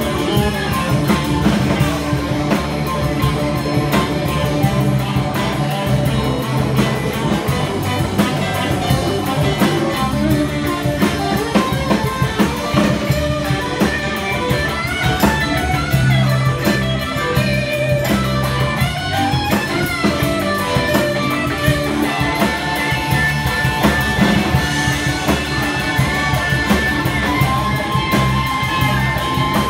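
Live rock band playing an instrumental passage: electric guitar lead with bending notes over drum kit and steady low notes.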